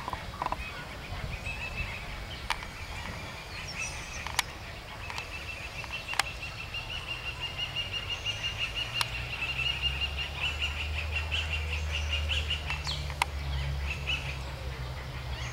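A bird call: a long, rapid trill of repeated notes at a steady pitch, growing louder and more plainly pulsed in its second half. A few sharp clicks cut in, and a low rumble joins in the last third.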